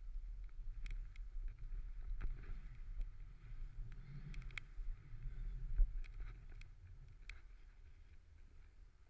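A snowboard sliding and turning through deep powder, heard through a pole-mounted GoPro's housing: a muffled low rumble of wind and board on snow with a light hiss and scattered small clicks and knocks. It grows quieter over the last few seconds.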